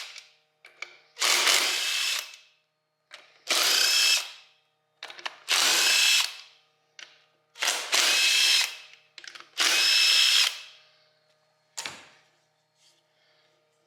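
Handheld power drill running in five short bursts of about a second each, roughly two seconds apart, with a steady motor whine in each burst. A single sharp click follows near the end.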